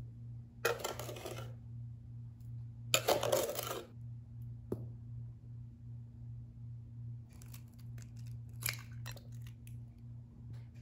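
Rustling and scraping handling noises: two bursts of about a second each, a single sharp click, then a run of short rustles and ticks, over a steady low hum.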